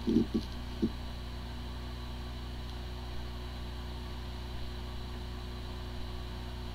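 Hard drive spinning with a steady hum, with a few short low thumps in the first second. The drive spins normally but cannot be accessed, a symptom the slide puts down to possible disk firmware corruption.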